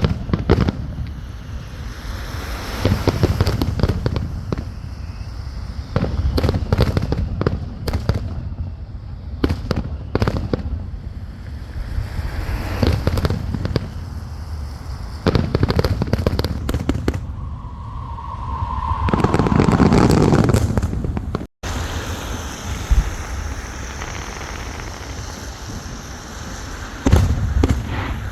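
Fireworks display: clusters of bangs and crackling every few seconds, with a louder whistling, rushing stretch about 18 to 21 seconds in.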